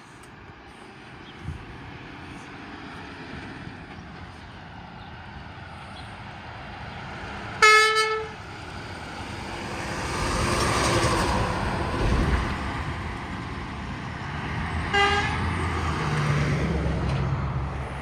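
Two short blasts of a vehicle horn, one steady note each, about seven seconds apart. The first is loud and lasts about half a second, the second is fainter and shorter. Road traffic passes between them, rising in level after the first blast.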